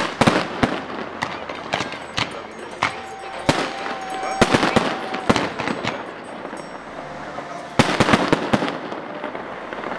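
Fireworks display: aerial shells bursting in rapid clusters of bangs and crackles, with the densest volleys just after the start, in the middle and about eight seconds in. A steady whistling tone is held for about two seconds in the middle, among the bursts.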